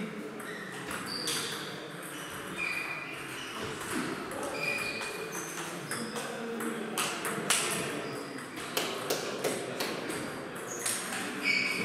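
Table tennis balls clicking off the bats and pinging on the table during a rally, with short ringing bounces. The strokes come in quick clusters, thickest a little after the middle.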